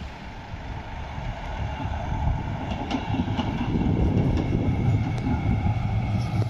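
A tram passing close by, its wheels rumbling on the rails with a few sharp clicks over the rail joints. It grows louder over the first few seconds.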